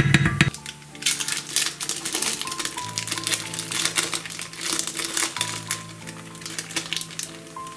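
A wooden spoon knocks and scrapes in a frying pan for a moment at the start. Then a thin plastic wrapper of cheese slices crinkles steadily for several seconds as it is handled and opened, over background music.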